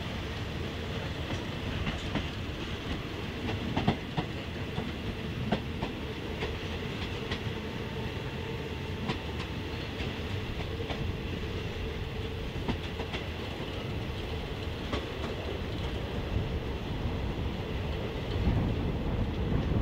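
Passenger train running along the track: a steady rolling rumble from the carriages, with sharp clacks every second or two as the wheels cross rail joints, heard from an open carriage window.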